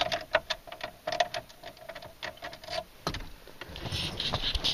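Irregular clicks, knocks and rustling of a camera being handled, over a faint steady tone that comes and goes for the first three seconds.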